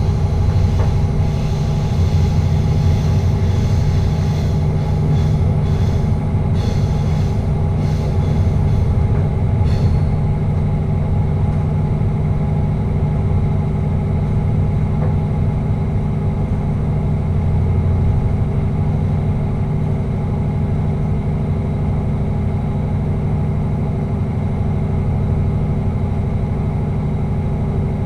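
Passenger train running steadily through a tunnel, heard from inside the driving cab: a constant low rumble with a steady hum, and a few faint clicks in the first several seconds.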